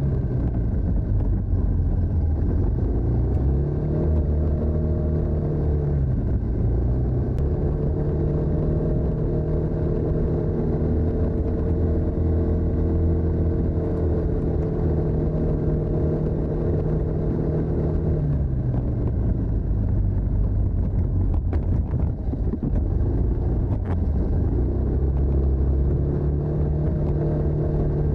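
TVS NTorq 125 scooter's single-cylinder engine through its stock exhaust, running while ridden. The note drops at the start, climbs again a few seconds in, holds steady for a long stretch, falls away past the middle, and picks up again near the end as the throttle is opened and eased.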